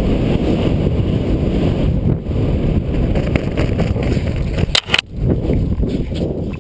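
Wind rushing over the microphone of a camera worn by a skydiver flying a parachute canopy in on a fast final approach. There is a brief crackle about five seconds in.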